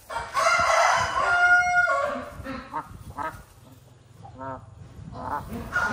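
A rooster crows once near the start, a loud call lasting nearly two seconds, followed by a string of short chicken clucks.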